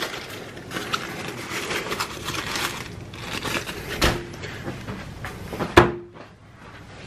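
Foil burger wrappers and paper fry cartons crinkling and rustling as they are handled and set out on a tray, with two knocks of items being put down, about four seconds in and just before six seconds, the second the loudest, with a brief ring.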